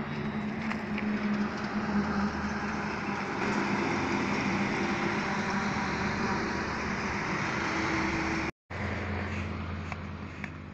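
A vehicle engine running steadily under a dense rushing noise. It cuts out abruptly for an instant near the end, then resumes and fades away.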